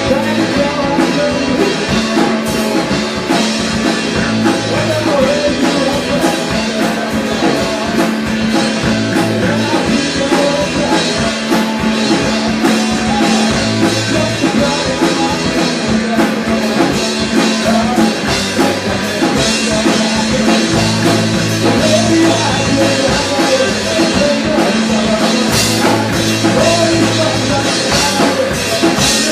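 Live rock band playing a song: electric guitar, electric bass and drum kit keeping a steady beat, with a male lead vocal over the top.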